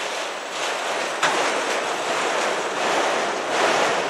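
Freight train of autorack cars rolling past, a steady noise of steel wheels on rail, with one sharp click about a second in.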